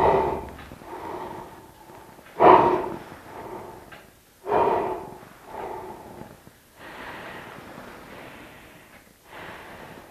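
A young woman gasping and breathing heavily in distress. Several sharp, loud gasps come about two seconds apart, followed by a long, drawn-out breath.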